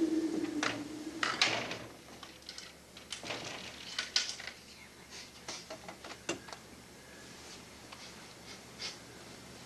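Clicks and knocks from the knob and latch of a stage-set door being worked, and the door being opened and shut, with the loudest knocks early and about four seconds in. A steady low hum stops about a second in.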